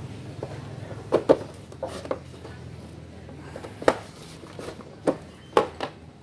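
Irregular knocks and clicks from handling an induction cooker's plastic casing and glass top as it is moved and turned over, about eight in six seconds, the loudest a little over a second in and near four seconds in.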